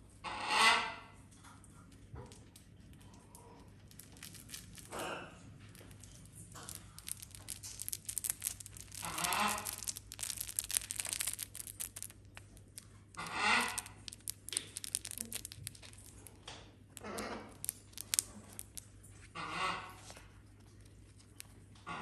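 A cockatoo chewing and tearing at a crinkly fabric toy with its beak, with a dense crackling, ripping stretch in the middle. Short animal calls, under a second each, come every few seconds; the first, right at the start, is the loudest.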